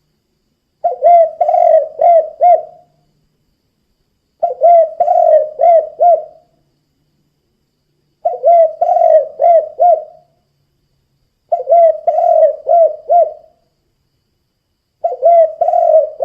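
Spotted dove (tekukur) cooing in the 'kuk 2' song style: a phrase of four or five short coos, repeated five times at about three-and-a-half-second intervals, with silence between phrases.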